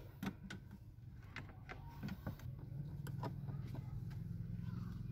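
Hands fitting a plastic engine air-cleaner housing and its rubber intake hose: a string of light, irregular clicks and knocks as the parts are pressed and clipped into place. A low steady hum comes up about two seconds in.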